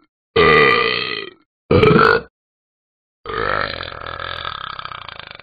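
A person burping loudly three times: two short burps, then a long drawn-out burp of about two seconds that trails off.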